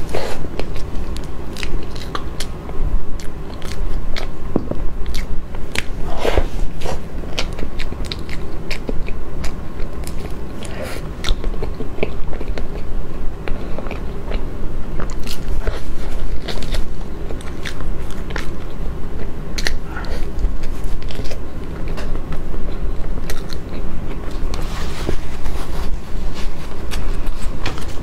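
A person eating cream cake close to a lapel microphone: chewing and mouth sounds with many short clicks.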